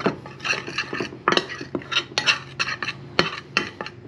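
A metal utensil stirring seasoned flour in a glass baking dish, with quick irregular clicks and scrapes against the glass and one sharper click about three seconds in.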